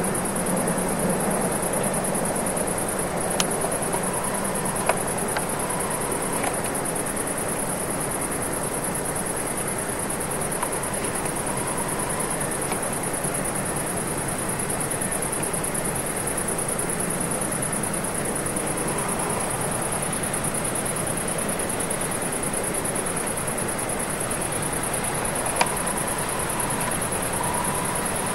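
Steady outdoor night ambience: a constant high-pitched chirring of crickets over a low even hiss, with a few faint clicks.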